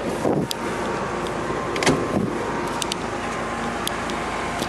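Roush Stage 1 Mustang's turbocharged 2.3-litre EcoBoost four-cylinder idling steadily through its Roush exhaust, with a few light clicks over it.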